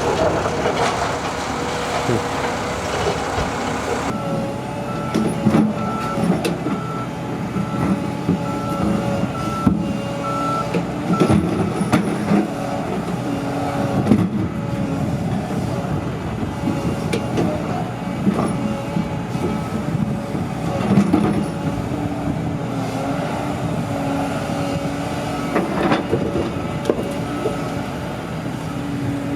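Heavy construction machine's engine running steadily while its backup alarm beeps about once a second for several seconds, starting about four seconds in, with a few sharp clanks along the way.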